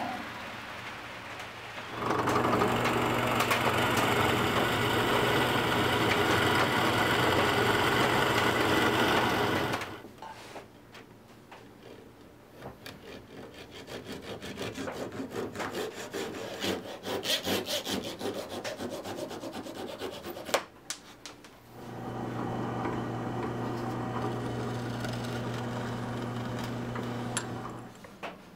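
Electric power tool motor running with a steady hum as it works wood for about eight seconds, then irregular hand rubbing and scraping on wood, then the motor runs again, a little quieter, near the end.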